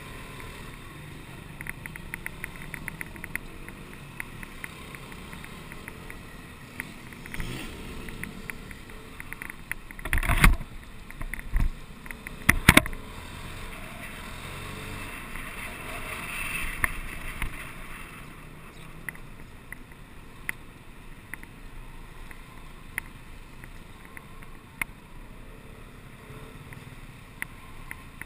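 Steady motorcycle-riding noise in town traffic: engine and wind rumble on the camera, with small rattling ticks and two loud knocks, about ten and twelve and a half seconds in.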